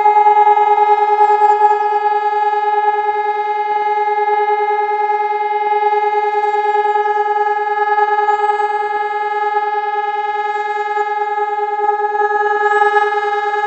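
Hörmann ECN 2400 electronic civil-defence siren sounding a steady, unbroken tone that holds one pitch throughout.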